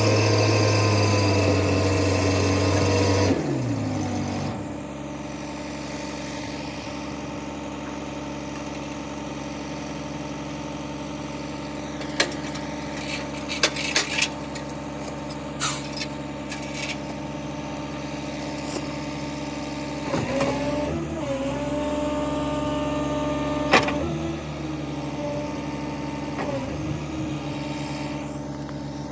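An engine running fast is switched off about three seconds in and winds down, leaving the M1089A1 wrecker's diesel idling steadily. A few sharp metal clinks of tow chain come around the middle, and the engine note briefly rises and falls about twenty seconds in.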